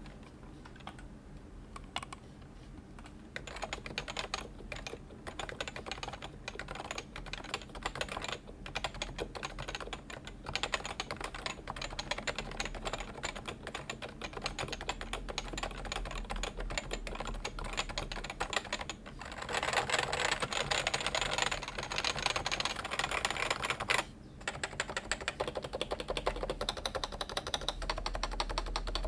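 Typing on a Realforce 106U keyboard with Topre switches (uniform 45 g, fitted with silencing rings) and PBT keycaps. A few scattered keystrokes at first, then fast continuous typing, densest and loudest about twenty seconds in, with a brief pause just after that before the typing resumes.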